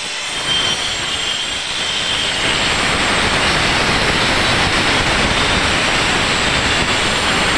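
Electric angle grinder cutting into a concrete wall at the corner of a column to make a groove for wall flashing. It gets up to speed about half a second in and then runs steadily and loudly.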